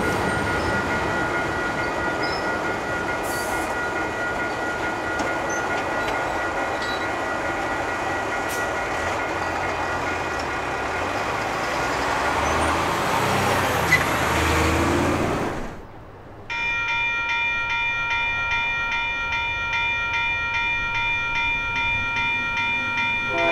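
A freight train rolls past with a steady rumble and clatter of wheels on rail, and a thin, steady high squeal runs over it. After a sudden cut, a level-crossing bell rings in a fast, even pulse.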